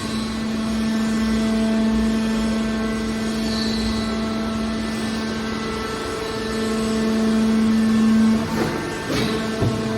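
Hydraulic scrap metal baler running: a steady hum from its hydraulic pump unit that swells for a couple of seconds, with a few metallic knocks near the end.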